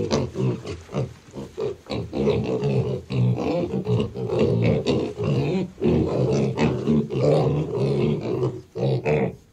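A group of six-week-old piglets grunting in a dense run of short, overlapping calls, dying away just before the end.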